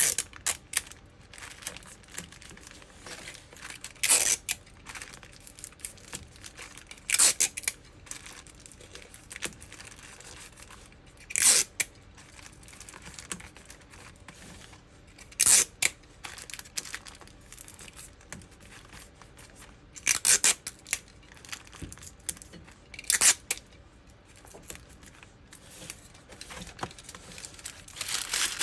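Strips of tape being pulled off a roll and torn to tape a cardboard box lid shut: about six short, loud rips a few seconds apart, with softer rustling of paper and cardboard between them.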